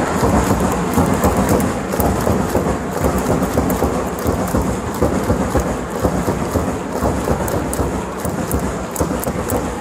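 Large stadium crowd of football supporters making a loud, steady din, with many hands clapping through it during the player calls.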